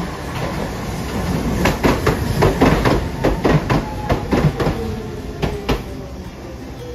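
Hiroden 3800-series articulated tram pulling into the stop: its wheels clack over rail joints in a quick run of knocks, and a falling whine comes in near the end as it slows to a stop.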